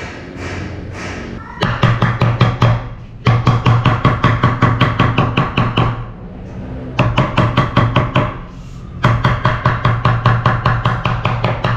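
Rubber mallet tapping fast along the edge of a laminated plywood cabinet panel, seating white edge banding freshly stuck on with contact cement. The taps come about six a second with a hollow, drum-like ring, in four bursts with short pauses, the first starting about one and a half seconds in.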